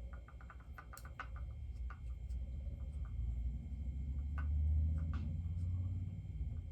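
Handling noise from unpacking a bobblehead: scattered light clicks and taps of plastic and cardboard, with a low rubbing rumble that swells about halfway through and fades near the end.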